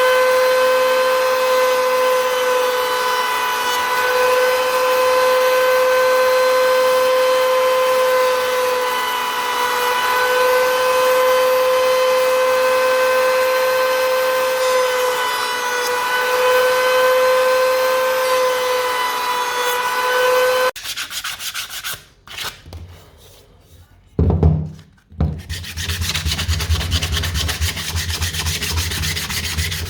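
A power tool's electric motor running at a steady high whine that wavers slightly, cutting off abruptly after about twenty seconds. A few seconds later comes a noisy rubbing against wood, like sanding, that keeps going to the end.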